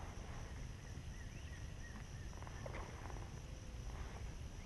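Steady background chirring of insects over a low, constant rumble, with a few faint short chirps about a second in.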